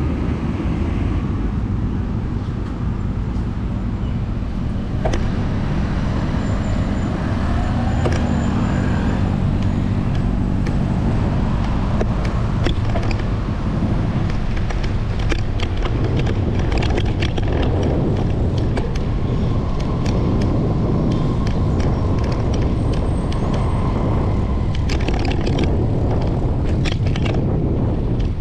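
Road traffic noise heard from a moving bicycle, a steady low rumble of passing vehicles. Scattered sharp clicks come in about halfway through and crowd together near the end.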